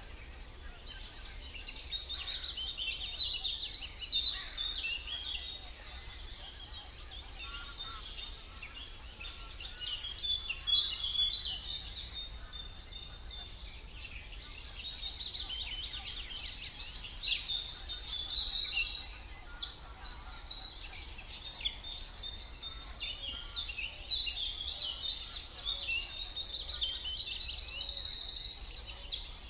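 A songbird in a reedbed singing in long, fast chattering phrases of high notes, each several seconds long, with short pauses between, over a faint low background rumble.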